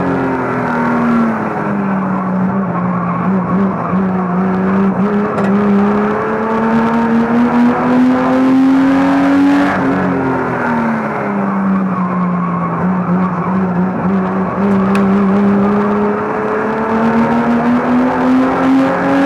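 Banger race car's engine heard from inside its cabin, pulling hard and easing off through the bends. Its pitch drops over the first two seconds, climbs steadily to about halfway, drops again, then climbs near the end.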